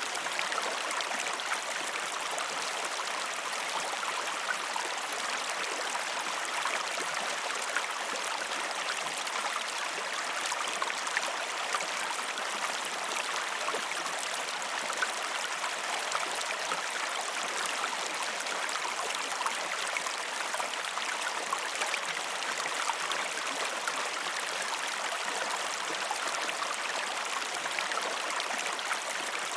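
River water rushing steadily, a constant even roar flecked with countless small splashes.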